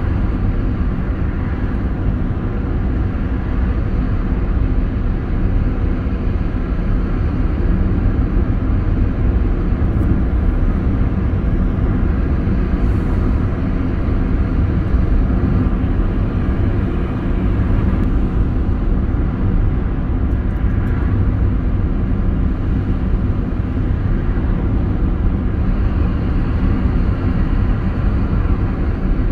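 Steady road noise inside a moving car's cabin: tyres and engine running at cruising speed, a constant low rumble.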